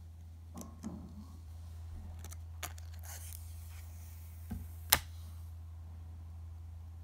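Handling noise as the paper screen cover is peeled off a new iPhone 12 Pro Max: a few light clicks, a short paper rustle about three seconds in, and one sharp click just before five seconds in, the loudest sound, over a steady low hum.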